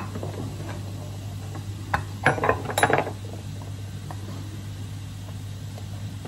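Oyster knife clicking and scraping against an oyster shell as it is pried open: a quick cluster of clinks about two to three seconds in, over a steady low hum.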